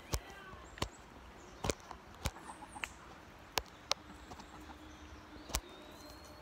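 Faint soft clucking from hens foraging, with about eight scattered, irregular sharp taps.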